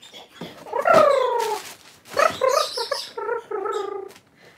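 An infant fussing angrily in short, high-pitched whining cries, one longer cry falling in pitch about a second in. Plastic packaging crinkles briefly between the cries.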